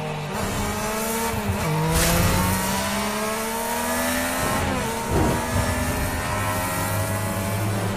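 Motorcycle engine accelerating hard, its pitch climbing steadily and dropping back twice at gear changes before rising again.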